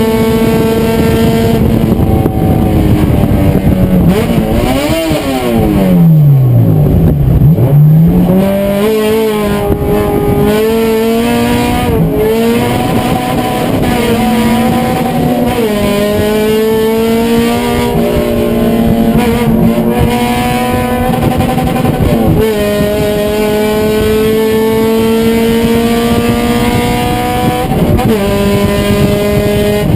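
Race car engine at high revs. About five seconds in, the pitch drops steeply as the car slows, then climbs back, rising in stretches broken by sudden steps as the driver shifts up through the gears.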